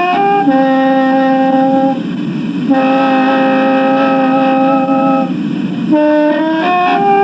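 Khaen, the Thai bamboo free-reed mouth organ, being played: several notes sound together in held chords that shift every one to three seconds.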